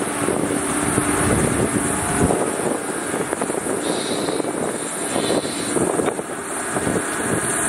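Heavy diesel engines of a 12-wheel dump truck and a Cat 320D hydraulic excavator running steadily, the truck's bed raised and tipping with soil while the excavator's bucket props it up.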